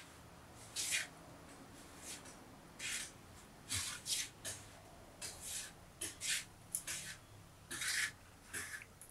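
Short rasping scraping strokes made by hand during food preparation, about a dozen at an uneven pace, each lasting a fraction of a second.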